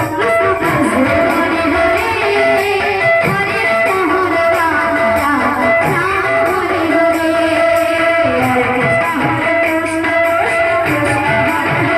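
Live Sambalpuri kirtan music played loudly over the stage sound system: a twangy plucked-string melody with sliding notes over a regular cymbal beat.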